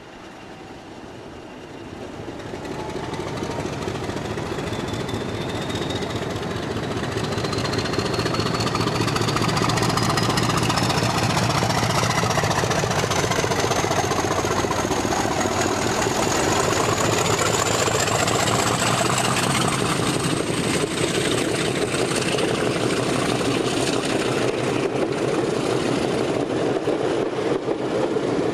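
Class 50 diesel-electric locomotive 50002 'Superb', with its English Electric 16-cylinder engine, pulling away under power and passing close by. The engine sound grows louder over the first several seconds, and a high whine rises slowly in pitch over it as the locomotive accelerates.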